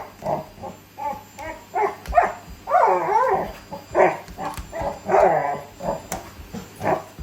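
Dogs barking excitedly in quick bursts, with longer wavering growl-barks mixed in, over a steady low hum.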